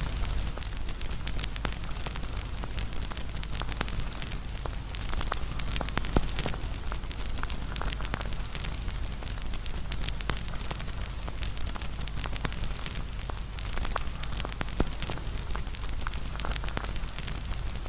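Crackling fire: a steady hiss with frequent small pops and snaps at irregular intervals.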